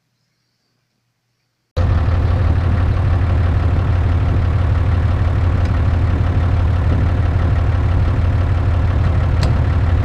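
Excavator's diesel engine idling steadily, starting abruptly about two seconds in after near silence, with a single sharp click near the end.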